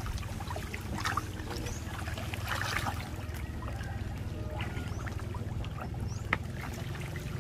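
Pond water splashing and churning as a dense crowd of fish and softshell turtles thrash at the surface while feeding, with a few sharper splashes over a steady low rumble.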